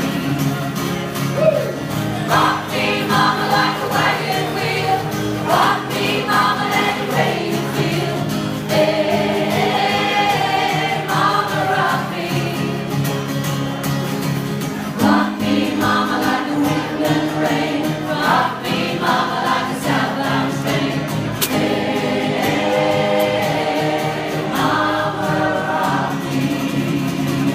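A choir singing in parts, in long held notes.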